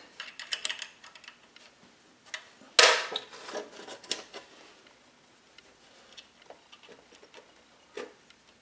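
Metal change gears, nuts and washers being handled and fitted by hand onto a lathe's gear plate: scattered small metallic clicks and clinks, with one louder clank about three seconds in.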